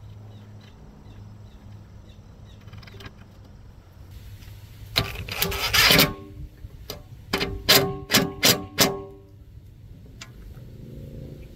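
A tool tightening a nut onto a lift-glass hinge stud: a short clattering run, then five sharp bursts about three a second, each with a brief ringing tone.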